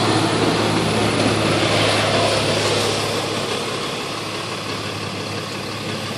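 Tow truck engine idling steadily, a low even hum under a broad hiss.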